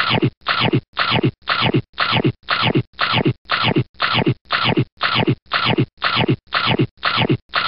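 A short scratch-like sound repeated in an even loop, about twice a second, each stroke falling in pitch.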